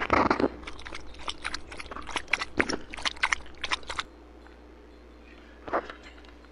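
Close-up gulping of a carbonated soda from a plastic bottle: a quick run of swallows and throat clicks for about four seconds, then it stops, with one more short sound near the end.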